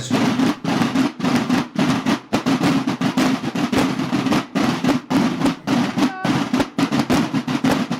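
Marching snare drums of a Mexican banda de guerra (drum and bugle corps) playing a fast, steady cadence in unison.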